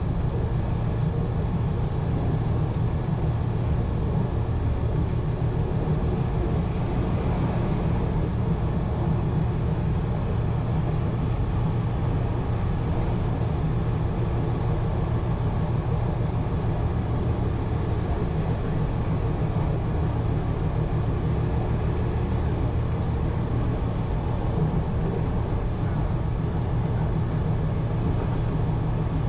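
1920s CPH railmotor's engine and running gear, a steady low drone as the railcar runs along the line between stations.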